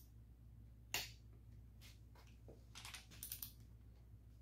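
Faint metal clicks from a socket and torque wrench being fitted onto a small-block Chevy connecting rod nut: one sharp click about a second in, then a quick run of clicks around three seconds in, over a steady low hum.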